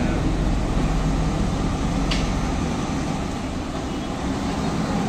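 Heavy truck engine running steadily under the recovery work, with a single sharp click about two seconds in.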